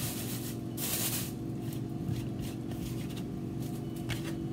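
Hands sweeping and gathering potato peels off a cutting board for the trash, with short rustling noises, the loudest about a second in, over a steady low hum.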